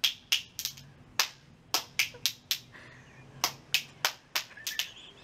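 A pair of musical spoons clacking in a beginner's uneven rhythm: sharp clicks about two or three a second, some in quick doubles and triples, with a short pause near the middle.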